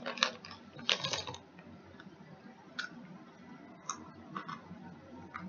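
Potato chips crackling and crunching: a dense run of crackles in the first second and a half, then scattered single crunches as they are chewed.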